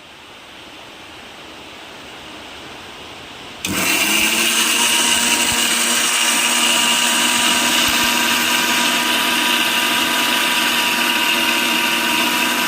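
Electric blender switched on suddenly about four seconds in and running steadily at full speed with a constant hum, blending peeled litchis into juice.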